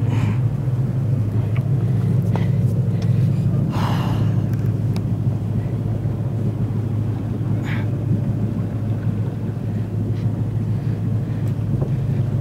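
Boat engine running steadily with a low, even engine note.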